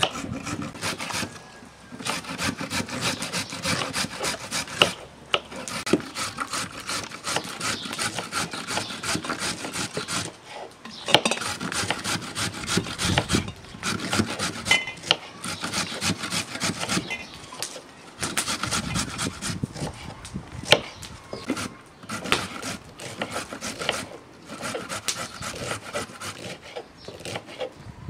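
Rustling and scraping of fresh dill and green peppers being pushed into glass jars by hand, with many quick rubbing strokes and small knocks against the glass, broken by brief pauses.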